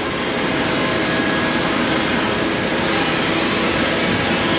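Steady hum and hiss of running machinery, with a few faint steady tones and no change in level.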